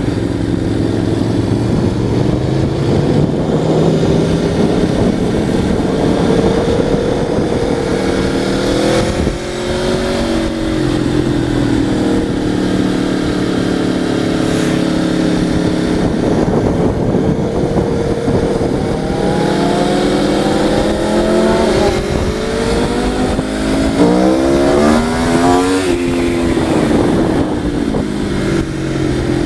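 Vehicle engine running under way, its pitch climbing and dropping with the throttle. About 24 seconds in it revs up sharply in a quick series of rising pulls, then falls back.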